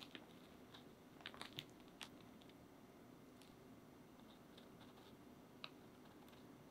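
Near silence with a few faint, light clicks and crackles from handling crisp craquelin-topped choux shells and a small metal spatula, a cluster of them about a second and a half in and one more near the end.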